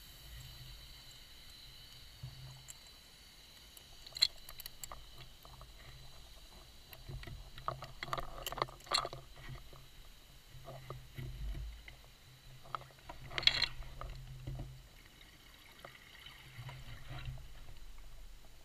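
Underwater sound of a scuba diver breathing, heard muffled through the camera housing: a low regulator rumble that comes and goes, and crackling bursts of exhaled bubbles, twice, with a sharp click about four seconds in. A faint steady high whine runs underneath.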